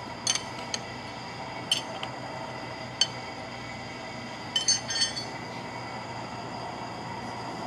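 Sharp metallic clinks and knocks, about half a dozen with a quick cluster near five seconds in, as a lathe steady rest is set on the bed ways and its clamp is worked with a wrench, over a steady background hum.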